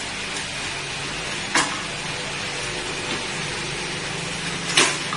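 Steady hiss with two sharp knocks, one about one and a half seconds in and a louder one near the end: a screen-door frame knocking against the doorway as one side is pushed and clipped into the opening.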